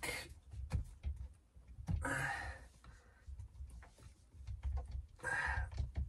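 Two long breaths out, about three seconds apart, with scattered light clicks and taps of metal from hands and tools on a VW Transporter T5's steering lock housing.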